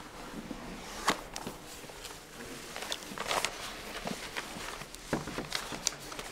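Sheets of paper script being handled and rustled, a few irregular sharp crinkles and taps scattered through.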